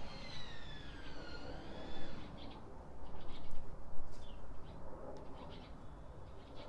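A distant siren wails and slides down in pitch, fading out within the first two seconds. After that come scattered short, high chirps and clicks.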